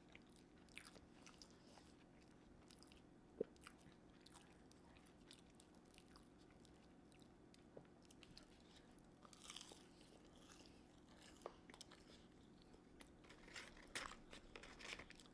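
Faint chewing and mouth sounds of someone eating fries dipped in sauce, with scattered soft clicks and one sharp tick about three and a half seconds in.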